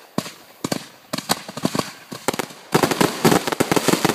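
Consumer firework cakes firing: scattered sharp cracks and pops, then about three seconds in a dense, rapid crackle of many small reports.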